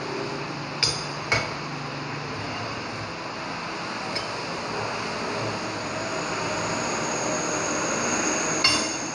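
Steel wheel-hub and steering-knuckle parts being handled on a hydraulic press bed: two sharp metallic clinks about a second in, a faint one midway, and a louder, ringing clink near the end, over steady workshop noise.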